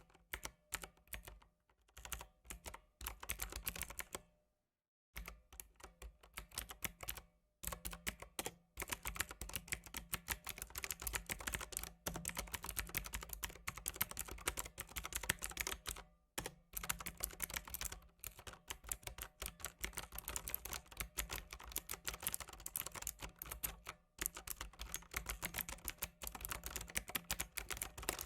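Computer keyboard being typed on in quick, dense runs of keystroke clicks. There is a pause of about a second some four seconds in, after which the typing goes on almost without a break.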